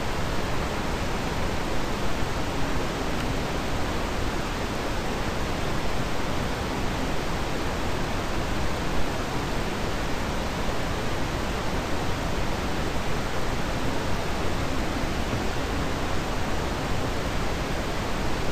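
Steady, even hiss of recording noise from an open microphone, with no other sound on top.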